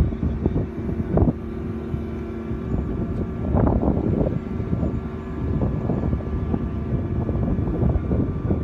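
Steady engine hum of a crane lifting a sling-load of concrete-coated pipes, with irregular knocks and rattles over it.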